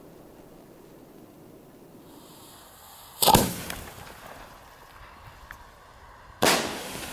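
Two loud bangs from homemade spherical firework shells, about three seconds apart, the first the louder, each trailing off in a rumbling echo. A faint hiss comes just before the first bang.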